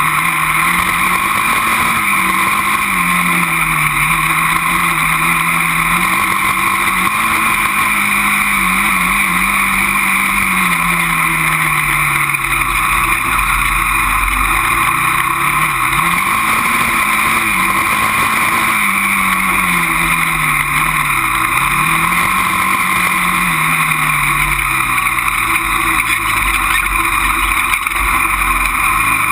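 Honda TRX400EX quad's single-cylinder four-stroke engine running under riding load, its pitch rising and falling repeatedly as the throttle is opened and eased off, over a steady rushing noise.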